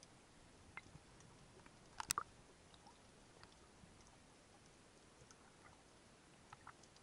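Faint underwater crackle: scattered sharp clicks over a quiet hiss, with a short cluster of louder clicks about two seconds in.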